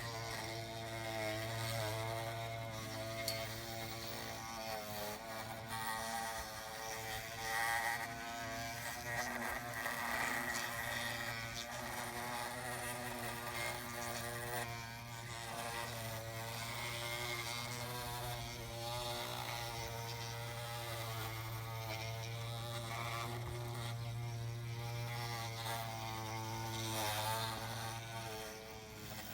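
Radio-controlled scale construction machines working: several electric motor whines rising and falling in pitch over a steady low hum.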